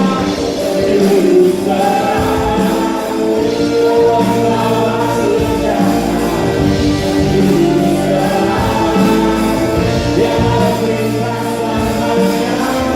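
Choir singing an Indonesian Christmas praise song over band accompaniment, with long held notes and a steady bass line.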